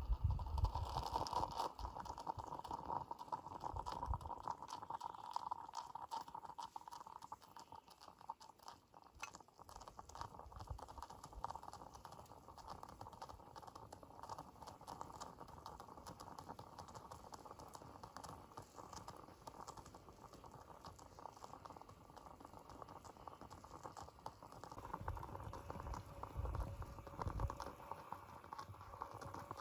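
Stainless steel stovetop coffee percolator bubbling and gurgling as the water boils and starts to perk up its central tube. A steady bubbling with many small pops and clicks.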